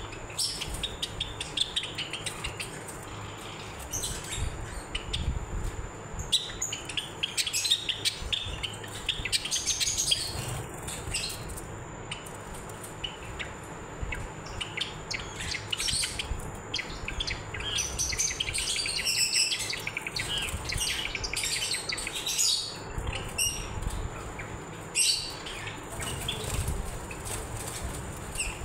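Several white Java sparrows chirping: short, sharp chip calls coming in quick clusters and overlapping throughout, busiest toward the end.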